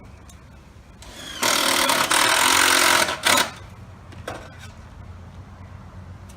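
A hand-held power tool runs in a loud burst of about two seconds, spinning up about a second in, then gives one short second burst. A small knock follows.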